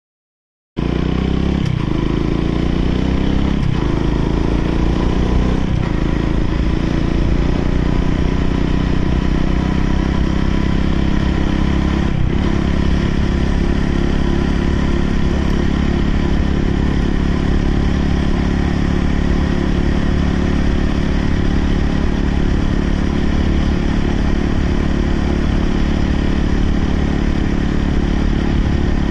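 Motorcycle engine starting up abruptly about a second in, pulling away with its pitch climbing and dropping back through about three upshifts in the first six seconds, then running at a steady cruise.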